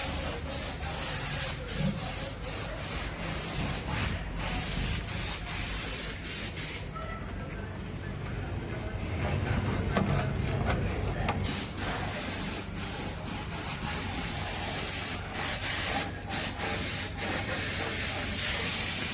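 High-pressure spray hissing, stopping and restarting several times, over a steady motor hum.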